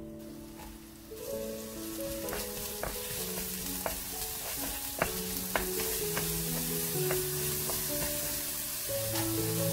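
Onion, green onion and garlic sizzling in hot oil in a nonstick frying pan. A spatula stirs them and knocks against the pan several times. The sizzle rises about a second in.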